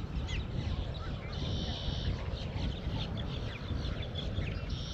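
Wind buffeting the microphone, with wetland birds calling over it: many short chirps, and two longer buzzy calls about a second and a half in and near the end.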